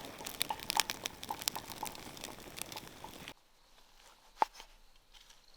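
Dense, fast crackling and crunching that cuts off abruptly a little over three seconds in, followed by a single sharp click.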